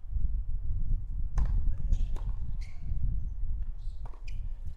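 Heavy low rumble on the microphone, with a few short sharp knocks of a tennis ball being bounced on a hard court.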